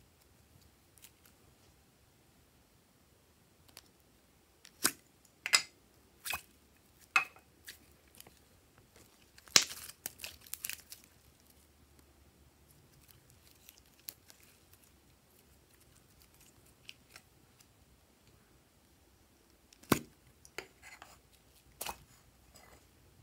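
Slime being squished and stretched by hand, giving a scatter of short, sharp sticky clicks and pops, bunched together about a fifth of the way in and again near the end, with faint handling noise between.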